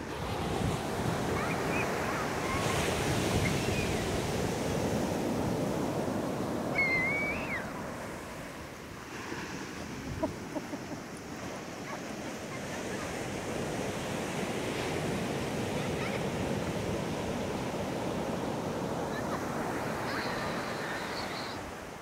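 Small waves washing up and back over a sandy beach: surf swelling over the first eight seconds, easing off around ten seconds in, then building again.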